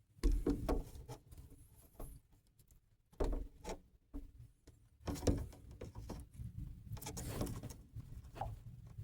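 Handling noise on a phone or camera microphone: irregular knocks, clicks and rubbing, with heavier bumps about a quarter second in, near three seconds in and about five seconds in.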